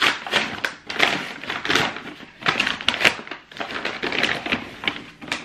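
Stiff brown paper parcel being slit with a utility knife and torn open, the paper crinkling and rustling in irregular bursts.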